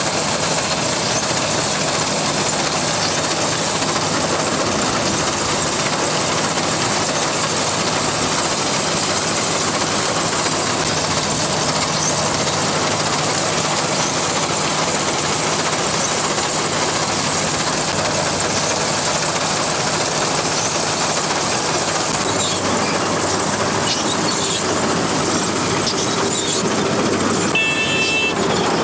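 ACE ACT 60 combine harvester running steadily while cutting a standing grain crop: a dense, even machine noise from the engine, reel and cutting and threshing gear. Near the end a repeated high beeping comes in.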